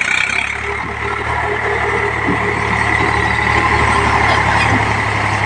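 Eicher tractor's diesel engine running steadily under load as it drags a loaded trailer through deep mud.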